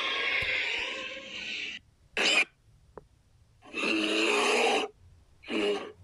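Cartoon character vocal sound effects: a rough, pitched vocalisation that stops about two seconds in, then three separate short vocal bursts, the middle one lasting about a second.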